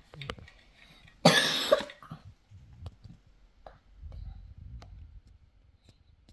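A person coughs once, sharply, about a second in, then a few faint clicks follow as cards are handled.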